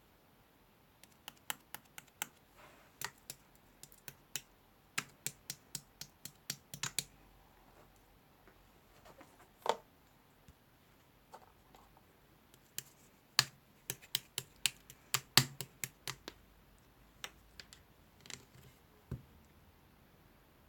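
Irregular sharp clicks and taps, coming in uneven clusters of several a second with pauses between, and one duller knock near the middle.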